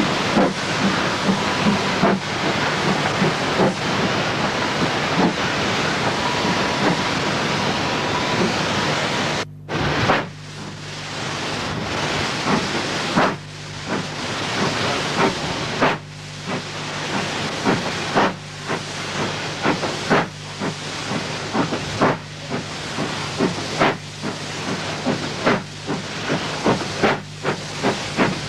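Steam train running: a steady rushing hiss that cuts out sharply about a third of the way in, then comes back rougher, with regular rhythmic pulses and clicks.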